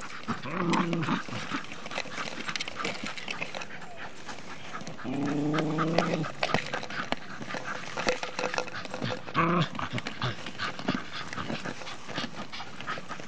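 Terriers growling in bouts: a short growl near the start, a longer one of about a second around the middle, and another short one later, amid frequent sharp clicks and scuffs.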